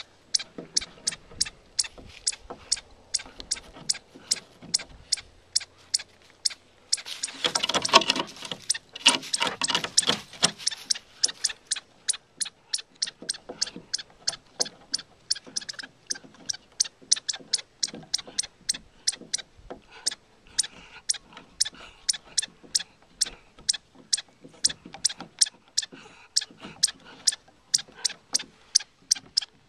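A chipmunk's alarm call: short, sharp chips repeated steadily at about two to three a second. About a quarter of the way in, a few seconds of louder rushing noise comes from the dog sniffing hard at the gap in the boards.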